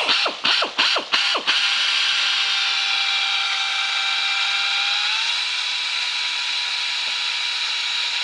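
Drill drilling out rivets: a few quick trigger blips, each spinning up and coasting down, then a steady high whine under load, its pitch stepping up slightly about five seconds in and cutting off at the end.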